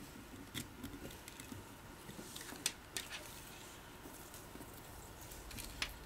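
Hands handling a camera's nylon wrist strap and its plastic fittings on a Sony a5100 camera body: soft rustling with scattered small clicks and taps. Two sharper clicks come close together a little under halfway through, and another comes near the end.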